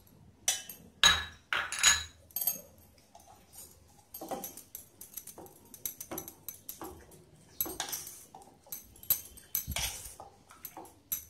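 Sharp clinks and knocks against a stainless steel pot in the first couple of seconds, then hands mixing raw mutton pieces through a wet curd-and-spice marinade in the pot, with irregular soft wet scrapes and rustles.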